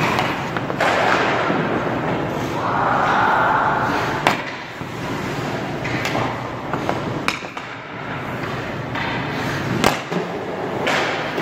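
Hockey goalie's skates and pads scraping across rink ice during butterfly slides, broken by three sharp clacks of hockey pucks being shot and hitting the goalie, about four, seven and ten seconds in.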